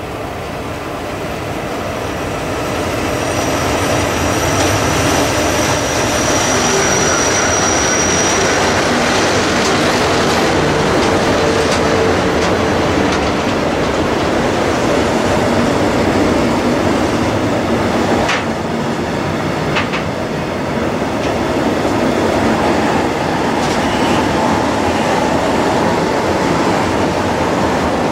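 An SBB Re 10/10 locomotive pair (Re 4/4 II and Re 6/6) hauls a heavy container freight train slowly uphill past the listener, climbing under load, and the sound swells as it draws near. A high thin whine is heard for a few seconds as the locomotives pass. The wagons then roll by with a steady rumble and wheel clatter, and there are two sharp clicks about two-thirds of the way through.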